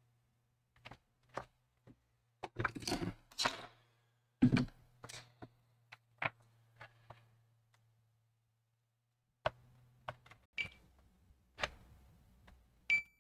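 Scattered clicks and knocks of tools handled on a laptop motherboard, loudest a few seconds in. Near the end a multimeter's continuity beeper starts a steady high tone as the probe touches the board, signalling a connection on the line being traced toward the CPU.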